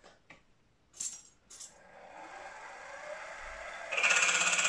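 Milling machine spindle starting and running up to speed with a long twist drill fitted, followed about four seconds in by a sudden, much louder steady cutting noise as the drill bites into the steam-manifold casting.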